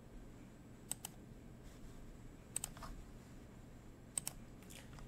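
Three faint pairs of computer mouse clicks, each a press and release of the button, about a second and a half apart.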